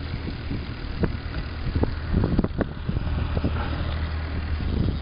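Outboard motor of a small fishing boat idling with a steady low hum, with scattered knocks and bumps over it.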